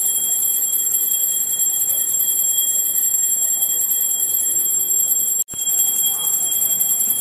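Temple bell rung rapidly and continuously during the puja, a steady high-pitched ring with a fast even pulse. It breaks off for an instant about five and a half seconds in, then carries on.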